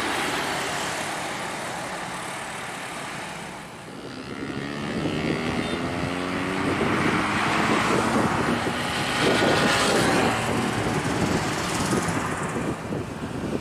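Passing road traffic: over steady road noise, a heavy vehicle's engine grows louder from about four seconds in and goes by, its pitch sliding as it passes.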